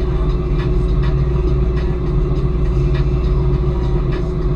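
Deadrise oyster workboat's inboard engine running steadily with a constant low rumble and hum, with scattered light clicks and knocks over it.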